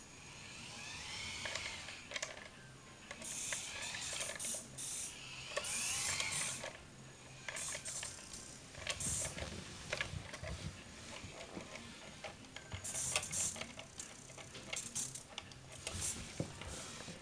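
Electric drive motor and plastic gearbox of a SIKU Control 1:32 RC Scania R620 tractor unit whining, the pitch rising and falling as the model speeds up and slows while driving off and reversing. Short high-pitched buzzes from the model's small servomotors come in several times.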